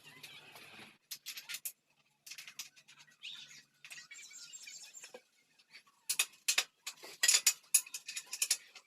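Sharp metallic clicks and clinks of tools and parts during work on a motorcycle's wheels, sparse at first and coming in quick, louder clusters from about six seconds in.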